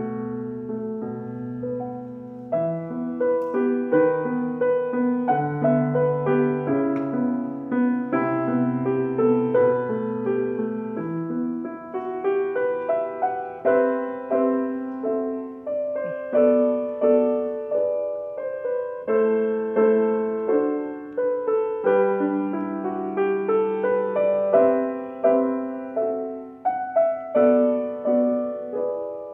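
Solo grand piano playing a gentle melodic piece, a repeated low bass line under a higher melody. The low bass notes stop about eleven seconds in, leaving the music in the middle and upper range.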